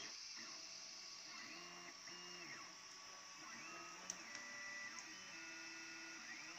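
Anet A8 3D printer's stepper motors whining in short tones that rise, hold and fall again as the print head moves back and forth while printing, over the steady whir of its cooling fans. A single sharp click about four seconds in.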